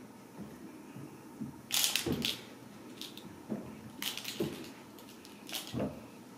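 Ragdoll kittens scuffling and batting a toy ball around a rug: three brief bursts of crackling rattle, about 2, 4 and 5.5 seconds in, between soft paw thumps.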